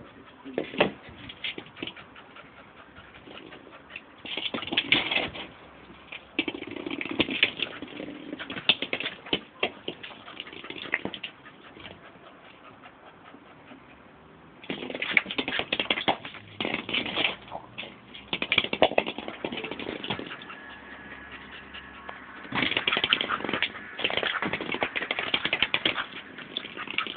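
Staffordshire bull terrier puppy scrabbling at her ball on concrete: several bursts of scraping, knocking and claw clatter, with quieter gaps in between.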